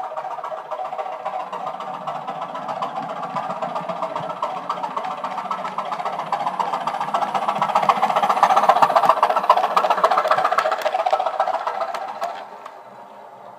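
OO gauge model of a Southern Region 2H 'Thumper' diesel-electric multiple unit running past, its sound chip playing the English Electric diesel engine sound through small speakers, mixed with the rattle of the model's wheels and mechanism on the track. It grows louder as the unit approaches, is loudest a little past the middle, then drops off sharply near the end as it goes away.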